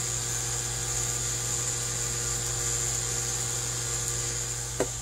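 Steady machine-like hum with a high-pitched whine over it, unchanging throughout, and one faint click near the end.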